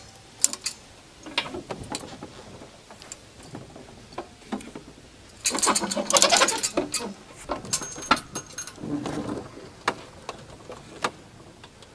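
Small hand-cranked winch on a trailer crane clicking as it is wound, with its chains clinking, while it lifts a heavy black walnut log round. The clicks come irregularly, with a dense run of rapid clicking about halfway through.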